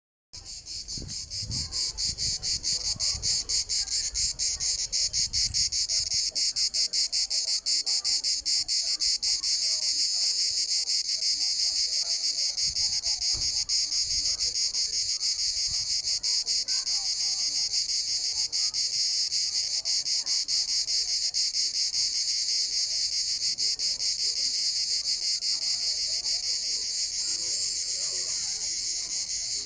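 Cicadas buzzing in a continuous, loud, rapidly pulsing high-pitched drone that begins abruptly just after the start and holds steady.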